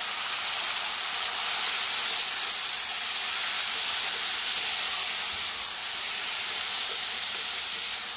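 Cooked grass peas sizzling steadily in hot melted lardo in a stainless steel pot as they are stirred with a wooden spoon.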